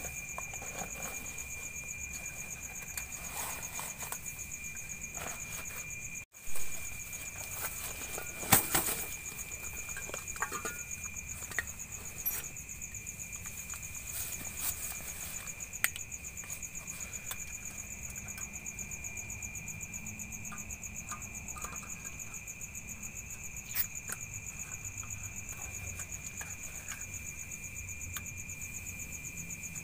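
Crickets and other night insects chirring steadily, a high pulsing trill with a lower one beneath it. A few sharp clicks and knocks of camping gear being handled cut through, the loudest about eight seconds in.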